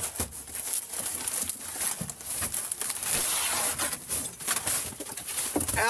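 Thin wood-grain interior paneling being torn out of a truck cab by hand: irregular cracking, snapping and crackling as the brittle panel breaks and scrapes.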